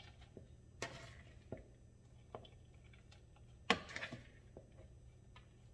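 Scattered soft clicks and rustles of shredded cabbage being scooped and packed into a measuring cup, with the sharpest knock about three and a half seconds in.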